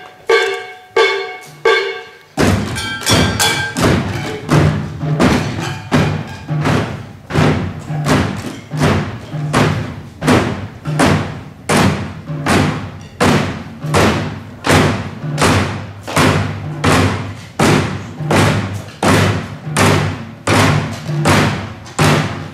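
Live percussion: a few ringing pitched strikes, then, about two seconds in, a steady beat of low, booming thuds begins, roughly two a second.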